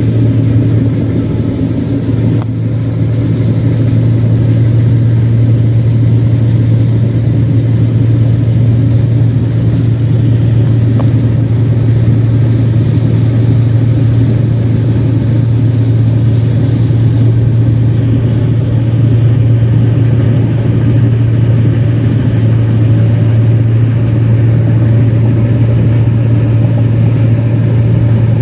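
Rice combine harvester engine running steadily under load while harvesting paddy, with a loud exhaust and a strong, even low hum.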